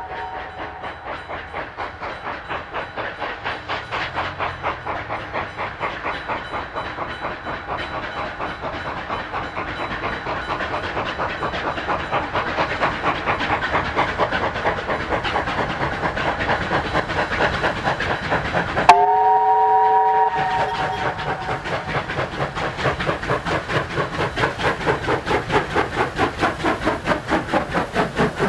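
Steam locomotive 3801, a NSW C38-class Pacific, approaching at speed, its rhythmic exhaust beats growing steadily louder as it nears. About 19 seconds in it gives one chime-whistle blast of about a second and a half.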